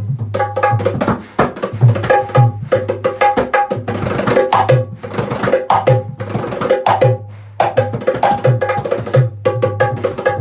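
Dholak played in a fast rhythmic pattern: quick sharp strokes on the high head, ringing at a clear pitch, over the deep ringing boom of the bass head, with brief breaks in the pattern.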